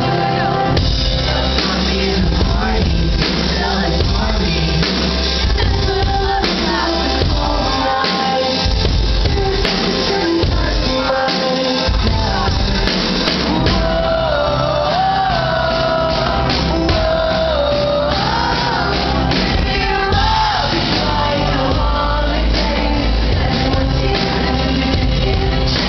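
Live band music with a male lead singer, loud and continuous. The sung melody stands out most clearly through the middle of the song section.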